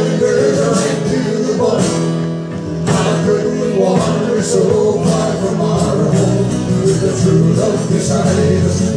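Live acoustic music: two acoustic guitars strummed in a steady rhythm, with men singing.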